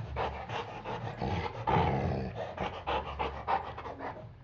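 Dog panting in quick, uneven breaths while tussling over a rope toy, winded from play.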